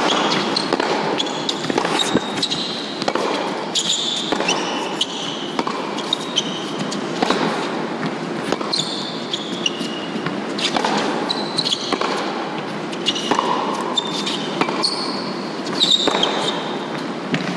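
Tennis play on an indoor hard court: repeated sharp pops of racket strikes and ball bounces, with brief high squeaks of shoes on the court surface, over the steady hum of a large arena.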